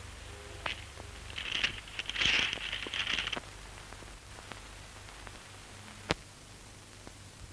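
Hiss and crackle of an old optical film soundtrack, with sharp pops, and a brief rustling, scraping noise about one and a half to three and a half seconds in.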